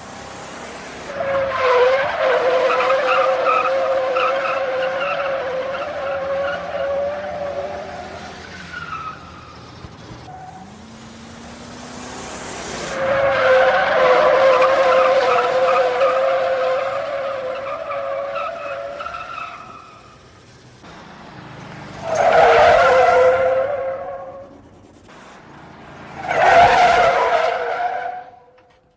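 Car tyres squealing in skids: two long squeals of several seconds each, then two shorter ones near the end, with the car's engine running beneath and revving up between the first two.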